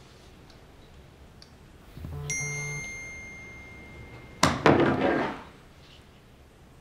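Smartphone notification chime: a single bright ding that rings on and fades over about two seconds, followed by a louder, noisy burst about a second long.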